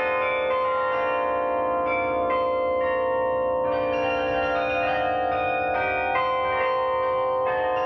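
Carillon of tuned bronze bells played by hand from the baton keyboard: a melody of struck bell notes, several a second, over the long overlapping ring of earlier notes.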